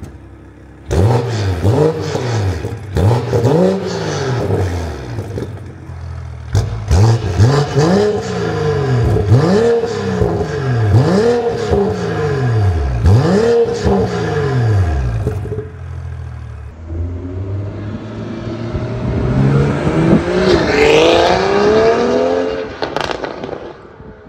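BMW X3 M40i's B58 turbocharged straight-six, fitted with a 200-cell downpipe and OPF delete, idling and then revved hard about eight times in quick succession. Each rev rises and falls, with crackles and pops from the exhaust as it comes off throttle. After a short lull it gives one longer rev that climbs higher before settling.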